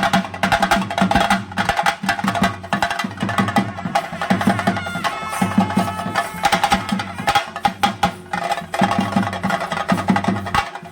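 Theyyam ritual drumming: chenda drums beaten fast and densely with sticks. A held pitched note stands out above the drums for a second or so around the middle.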